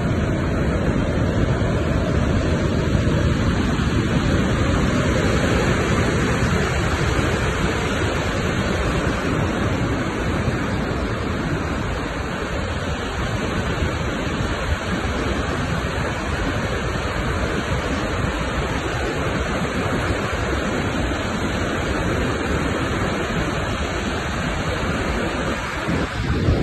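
Muddy floodwater of a river in spate rushing through rocky rapids: a steady, full rush of churning water.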